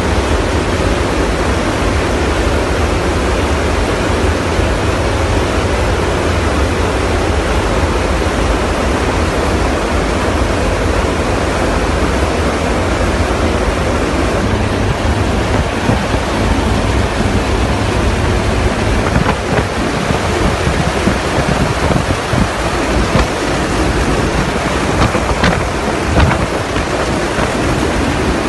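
Loud steady rush of airflow and aircraft noise at the open rear cargo ramp of a transport aircraft in flight, with wind buffeting the microphone; the buffeting turns choppier in the second half.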